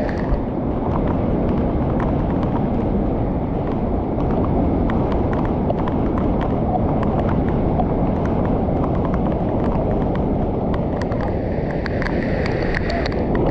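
Loud, steady rush of muddy floodwater pouring over a wide low weir and churning through the pool below.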